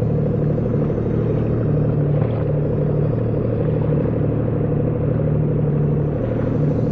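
Sea-Doo jet ski engine running steadily with an even, unbroken hum.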